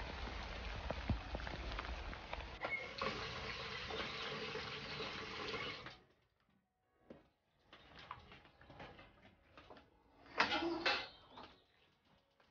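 Steady rustle of wet bamboo and brush being pushed through, stopping suddenly. Then quieter clatter of a wok being handled at an outdoor sink and stove, with one louder clatter about ten seconds in.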